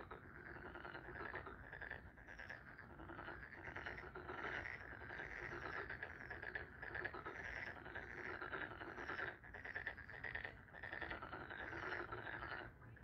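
A chorus of frogs croaking: short calls repeating several times a second.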